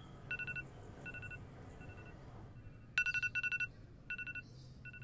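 Electronic alarm beeping in short bursts of rapid high-pitched pulses, repeating every half second or so; it dies down around two seconds in, then returns loud about three seconds in. A low steady hum runs underneath.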